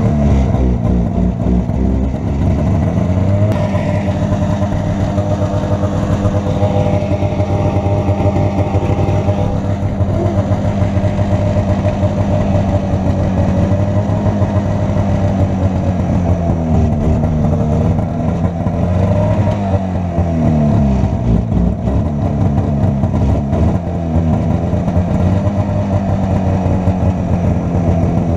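Arctic Cat Jag 440 snowmobile's two-stroke twin engine running under way, its pitch dropping and climbing back several times as the throttle is eased off and opened again.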